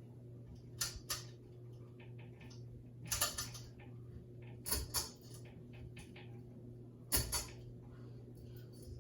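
Hunter 52-inch ceiling fan running: a steady motor hum, with sharp clicks or knocks every second or two.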